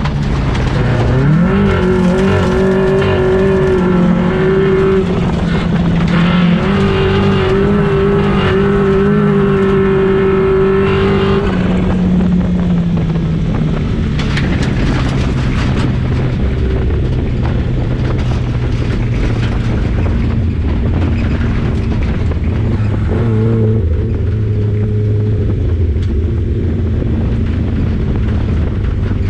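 Engine of a 1400 cc class autocross race car, heard from inside its stripped cabin, pulling hard under racing load. The revs climb about a second in and hold high until about eleven seconds, then settle to a lower, steadier drone. Scattered knocks sound around the middle.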